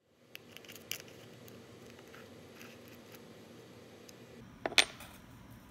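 Small workbench handling sounds of model-building parts: faint ticks and clicks as thin strips of wood and styrene are handled, then one sharp tap about a second before the end as a small hand tool meets the workpiece.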